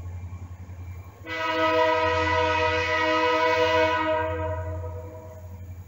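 Diesel locomotive air horn sounding one long blast of several tones together. It starts about a second in, holds for about four seconds and fades at the end, over a low steady hum.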